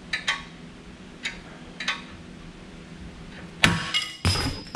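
A few sharp clicks as a wrench turns the screw of a hydraulic ball joint separator. About three and a half seconds in comes a loud metallic crack with ringing as the lower control arm breaks free of the ball joint's taper, followed by a second clank.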